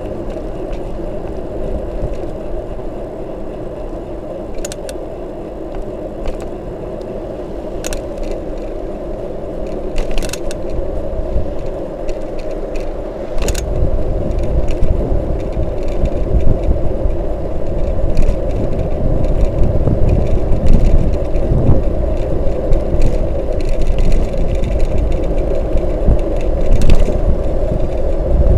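Bicycle rolling along an asphalt road, picked up by a handlebar-mounted camera: a steady tyre hum with occasional sharp rattling clicks. Wind starts buffeting the microphone about halfway through and grows louder.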